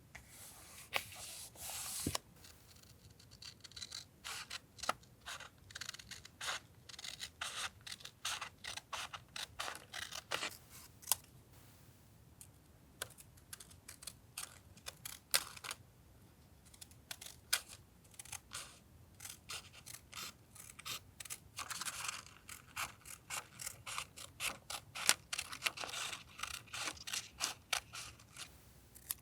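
Scissors snipping through paper in runs of quick, crisp cuts, with a couple of short pauses.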